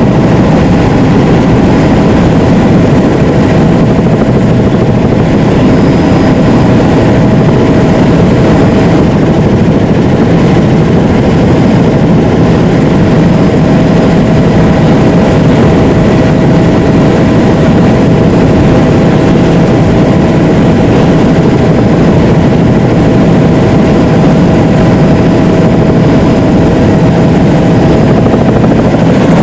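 Helicopter heard from on board: a loud, steady drone of rotor and engine with a constant whine running through it.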